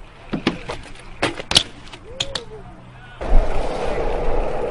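Scattered sharp clicks and knocks from a BMX bike and rider. About three seconds in, these give way to the loud, steady rolling rumble of BMX tyres on concrete.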